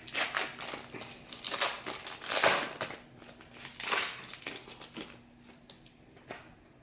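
Crinkly wrapper of a baseball card pack being torn open and crumpled, in irregular crackling bursts that are loudest over the first four seconds, then a few faint crackles.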